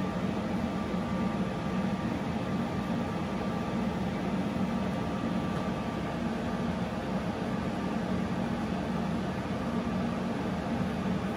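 Steady hum of a CO2 laser cutter's running support equipment, its water chiller and air compressor: a low drone with a faint high whine over a hiss.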